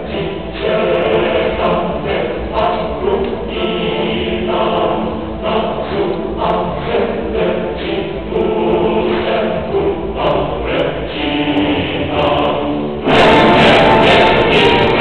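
Choral music, a choir of voices singing, which becomes suddenly louder and fuller near the end.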